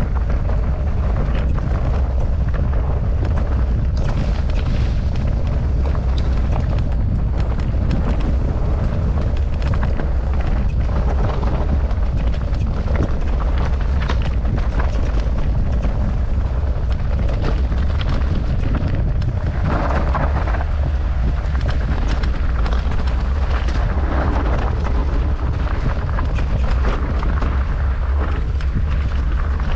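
Mountain bike descending a rocky trail at speed: tyres rolling and the bike clattering over rough ground, under heavy wind buffeting on the microphone. The noise is steady throughout, with a harsher stretch about twenty seconds in.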